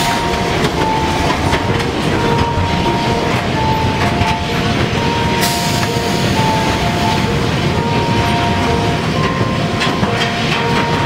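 Dark-ride car running along its rail track with a steady low rolling noise, and a slow melody of long held notes playing over it.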